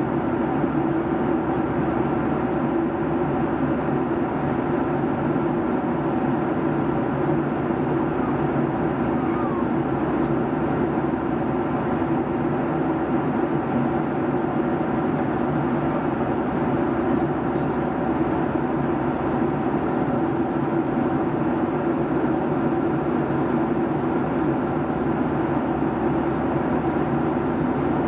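Steady cabin noise of a Boeing 757-200 in flight: the hum of its Rolls-Royce RB211 engines and the rush of air, unchanging throughout, with several held tones over it.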